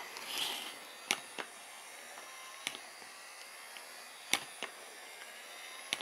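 Small plastic remote-control robot T-rex toy walking: a handful of sharp, irregularly spaced plastic clicks from its feet and gear train over a faint steady hum, with a soft rustle near the start as it is turned by hand.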